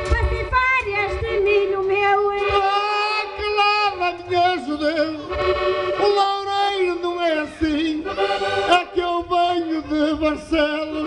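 Concertina playing a lively folk melody with chords and quick ornamented runs, the instrumental interlude between sung verses of a Portuguese desafio.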